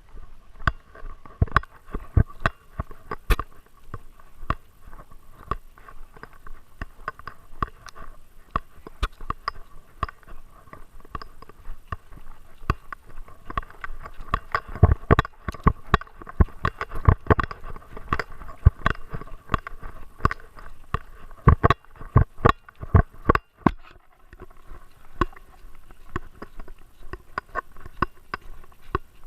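Irregular knocks and clicks from a GoPro strapped to a Great Dane, jostled as the dog moves; the knocks come thickest about halfway through.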